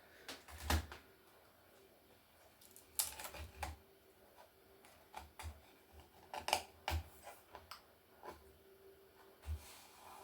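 Irregular clicks and light knocks of a mid-1990s laptop's plastic keyboard and casing parts being handled and lifted apart during disassembly.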